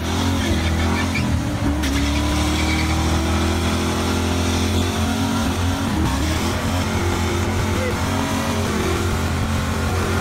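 Mercury Grand Marquis's V8 held at high revs during a burnout, running steadily with a slight rise in pitch early on, the rear tyres spinning against the pavement.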